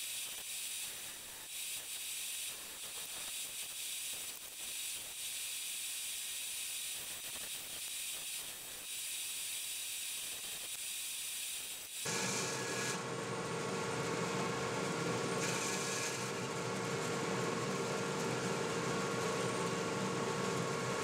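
Bandsaw running while a hardwood plane body is shaped on it: a steady hiss that changes abruptly about twelve seconds in to a fuller, steady machine hum.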